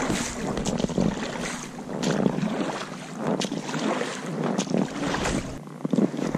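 Oars of a small inflatable raft dipping and pulling through lake water in quick strokes, about one a second, with splashing and light knocks. The strokes stop shortly before the end.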